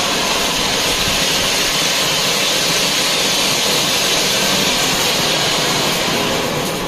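Ground fountain fireworks (Diwali flowerpots) spraying sparks with a loud, steady hiss.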